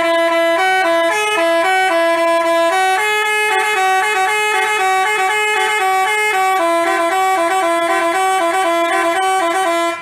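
Basuri telolet bus horn, a multi-tone horn, playing a quick tune of short stepped notes, two notes sounding together.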